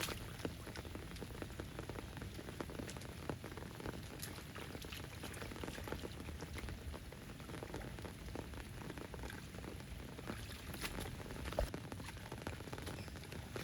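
Rain falling steadily, a dense patter of small drop taps.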